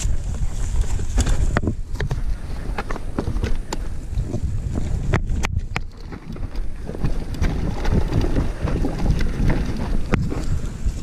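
Mountain bike rolling fast downhill on a dirt trail: wind buffeting the microphone over a steady deep rumble from the tyres, with frequent sharp clicks and knocks as the bike rattles over bumps.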